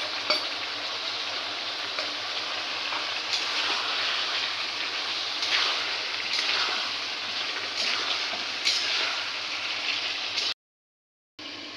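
Chicken pieces and ground spice paste sizzling and bubbling in hot oil in an aluminium kadai, with a few short scrapes and knocks as a spatula stirs them. The sound cuts out for under a second near the end.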